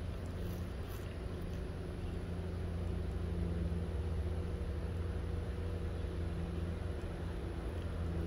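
A steady low mechanical hum with a few faint steady tones in it, growing slightly louder about three seconds in.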